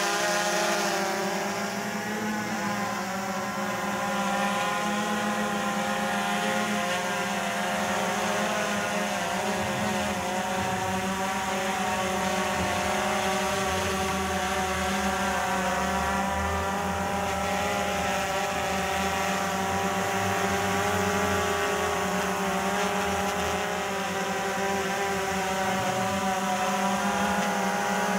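DJI Phantom 3 Professional quadcopter's propellers buzzing steadily in flight, a hum of several tones whose pitch wavers slightly.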